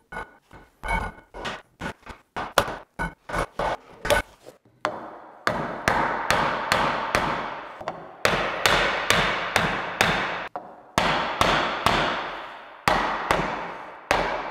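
Hammer blows on a wooden block set on a wooden handrail, driving the top rail down onto black aluminum spindles; each blow rings on briefly. A run of light clicks and taps comes first as the spindles are fitted, and the steady hammering starts about five seconds in.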